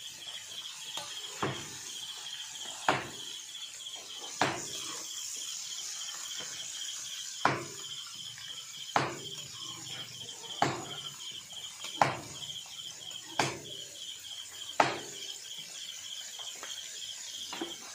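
Chicken pieces frying in a wok of hot oil over a wood fire: a steady sizzle, with sharp clicks about every second and a half. An insect's high pulsing trill runs on steadily underneath.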